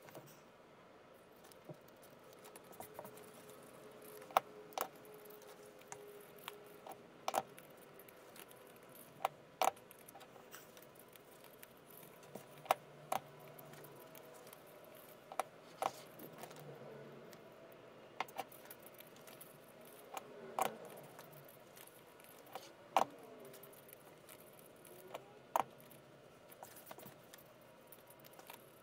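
Yellow foam craft petals being handled and nested together by hand: scattered light clicks and taps at irregular intervals, with a few faint squeaks of foam rubbing on foam.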